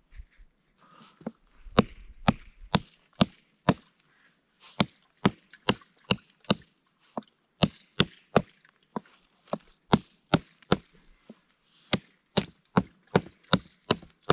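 Chopping into a dry dead branch with a blade: sharp wooden strikes about two a second, in several runs of four to six blows with short pauses between.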